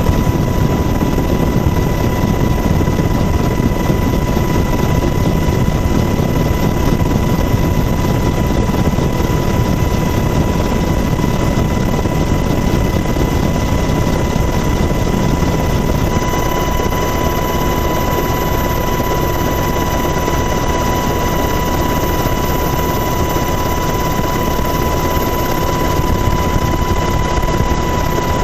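Helicopter in flight heard from inside the cabin: a loud, steady rush of rotor and turbine noise with a steady high whine.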